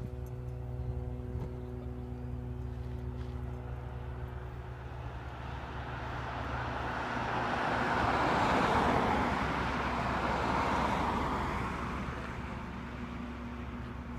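A car passing on the road: tyre and engine noise swells up, is loudest about nine seconds in, and fades away, over a steady low hum.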